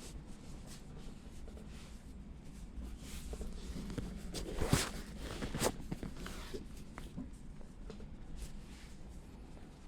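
Soft rubbing and rustling of hands working during a massage, with two sharper slaps or taps, one about halfway through and one a second later.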